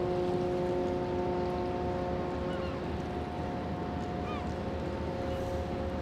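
Steady drone of the tugs' and container ship's engines, a low rumble carrying a constant hum. A few short bird calls sound over it, about two and a half and four seconds in.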